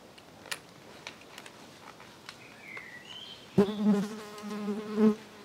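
A flying insect buzzing close by. It comes in suddenly about three and a half seconds in as a steady, low buzz that swells and fades as it moves.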